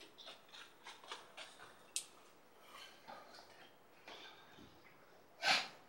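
Faint clicks and light handling noises in a small room, with one sharper click about two seconds in, then a short, loud huff of breath near the end.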